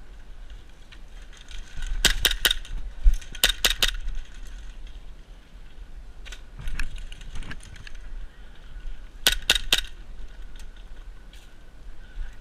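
Airsoft guns firing in quick strings of three or four sharp snapping shots, about three such strings with a few single shots between, over a low rumble.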